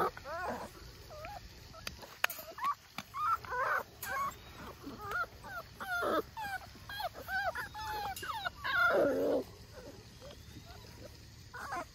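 North American Mastiff puppies whining and yipping, many short high calls one after another, with a louder, longer cry about nine seconds in.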